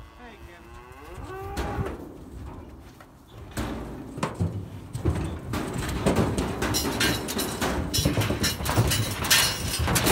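Beef heifers mooing, low drawn-out calls in the first couple of seconds. From about three and a half seconds in comes a louder run of knocks and rattles as the crowded heifers shift against the steel alley panels and chains.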